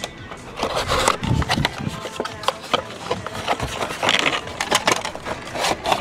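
Cardboard box being opened by hand, its flaps rubbing and scraping, with many sharp clicks and taps throughout and bursts of rustling about a second in, around four seconds and near the end as the plastic rat trap is pulled out.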